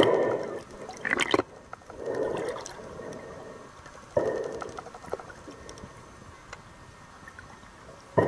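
Muffled underwater sound picked up by a camera held below the surface as a snorkeler swims: several dull whooshes of moving water at irregular intervals, with a short run of sharp clicks about a second in.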